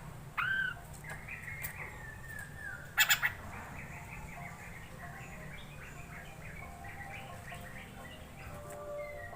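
Poksay mandarin, a laughingthrush, singing: a short loud note, then a falling warbled phrase. About three seconds in come two sharp loud bursts, then a long run of quick chattering notes.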